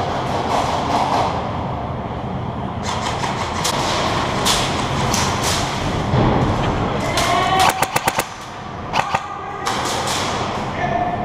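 Airsoft electric guns (AEGs) firing: scattered sharp pops, with a quick string of shots about seven and a half seconds in and two more about a second later.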